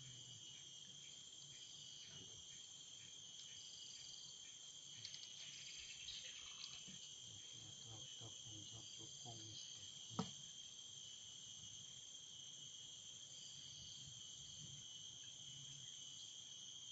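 Faint, steady high-pitched chorus of crickets and other insects, with a softer pulsing trill rising and fading over it, and a single sharp click about ten seconds in.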